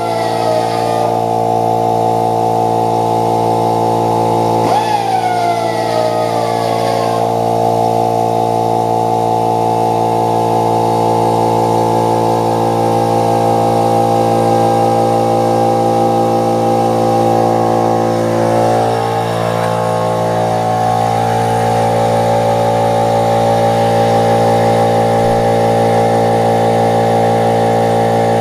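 A small electric grinding tool runs steadily with a high motor whine, grinding and smoothing worn spots on chainsaw parts. Its pitch falls near the start and again with a click about five seconds in.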